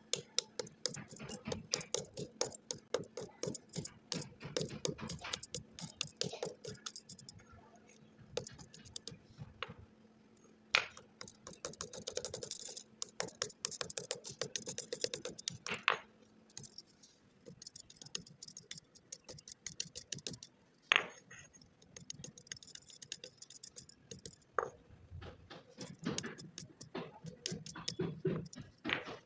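Sticks of chalk crushed under a flat metal blade: dense, irregular crunching and crackling as they break into fragments, with a few louder sharp snaps now and then.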